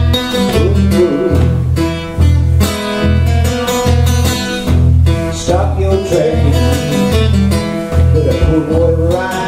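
Acoustic guitar and acoustic bass guitar playing a repeating blues riff, the bass note pulsing steadily underneath. A man's voice comes in a few times with sliding vocal lines.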